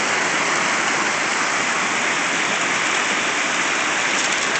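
Creek water rushing steadily over rocks in small cascades.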